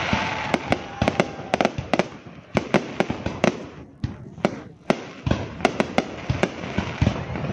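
Aerial fireworks display: shells bursting in a rapid, irregular string of sharp bangs over a continuous crackling hiss. The hiss dips briefly about four seconds in while the bangs go on.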